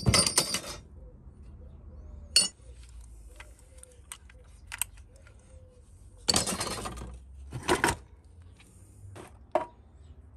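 Rusty scrap metal parts clinking and clattering as they are rummaged through and handled. A short rattle comes right at the start and two more about six to eight seconds in, with single sharp clinks between.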